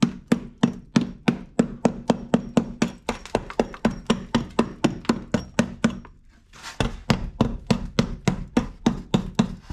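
Hammer blows on a van's rusted sill and wheel-arch metal, about three to four sharp strikes a second, pausing briefly about six seconds in.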